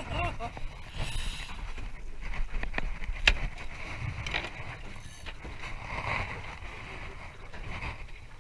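Handling noise aboard a small aluminium boat: scattered knocks and rustling over a steady low rumble, with one sharp knock on the hull or deck about three seconds in.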